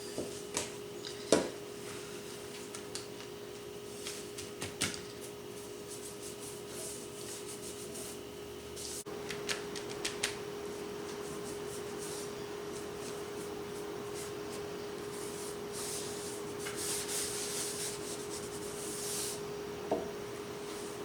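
Paper towel rubbing brown chalk paint onto a wooden piece to distress it: soft scuffing with scattered light taps, over a steady hum.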